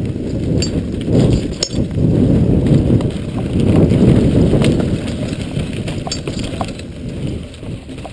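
Jamis mountain bike riding fast over a bumpy dirt trail: heavy wind rumble on a handlebar-mounted microphone, loudest about a second in through the middle, with the bike's chain and frame rattling and several sharp clicks over the bumps.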